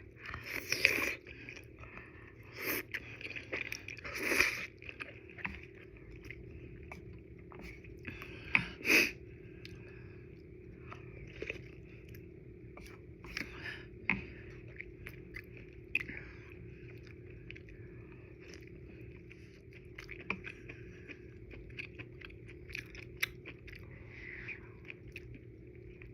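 Close-miked chewing of udon noodles. Several louder, sudden mouth sounds fall in the first ten seconds, then softer scattered clicks of chewing.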